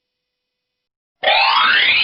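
Silence for the first second or so, then a cartoon sound effect whose pitch slides steadily upward for about a second.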